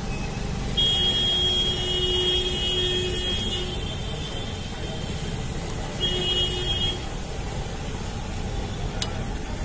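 Ghee bubbling under frying ghevar with a steady low rumble, while a vehicle horn sounds a steady high tone, held about three seconds from just under a second in, then again for about a second around six seconds in.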